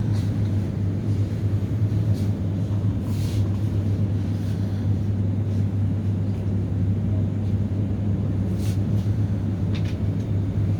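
A heavy engine running steadily with a constant low drone, with a few faint brief clicks over it.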